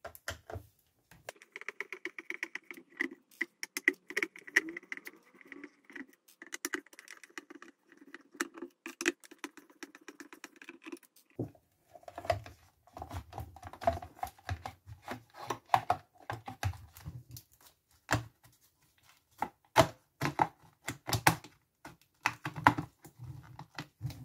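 Screwdriver backing small screws out of an Anko soundbar's plastic casing: a fast, steady run of small clicks and scraping for the first half. From about halfway, the plastic back cover is prised and pulled off, with sharper clicks, snaps and knocks of plastic against plastic.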